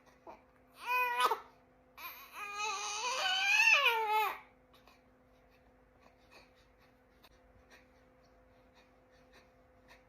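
Baby giving two high-pitched fussing cries: a short one about a second in, then a longer one of about two seconds that rises and falls in pitch.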